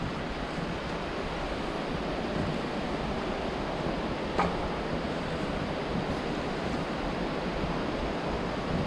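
Steady rushing noise of wind buffeting the microphone, with one short click about four and a half seconds in.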